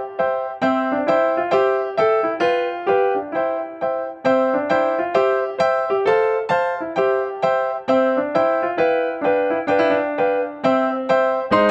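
Background music: a simple melody of single notes played on an electric piano, a few notes a second.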